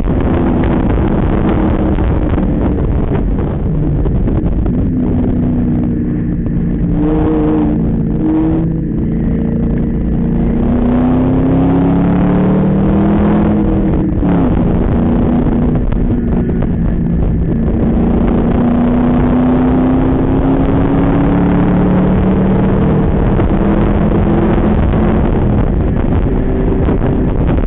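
Ford Mustang's engine heard from inside the car at speed on a wet track. Its note climbs and drops back as it shifts through the gears, over steady road and spray noise.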